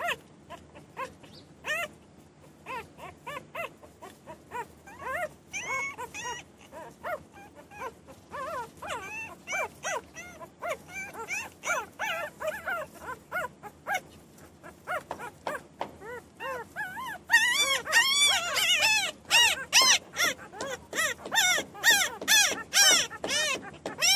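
Newborn puppies crying and whining: short, high-pitched squeals, each rising then falling in pitch, in quick overlapping succession. They grow louder and more frequent about two-thirds of the way through.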